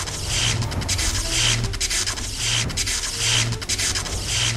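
A rhythmic scraping, rasping noise that pulses about once a second, each pulse with a dull low thump.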